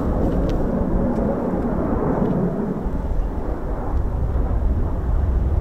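Eurofighter Typhoon's twin EJ200 turbofans heard from the ground as the jet flies past: a steady, deep jet roar.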